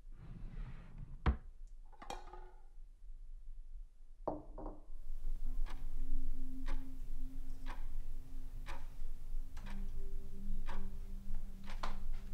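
A soft rustle and a single sharp click in the first two seconds, then from about five seconds a low sustained drone with a slow ticking, about one tick a second, like a clock, in a tense film score.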